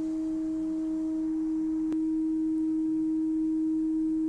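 Steady 315 Hz reference tone played back from a level-calibration test tape on an Akai 7100 LTD cassette deck, with a faint click about two seconds in.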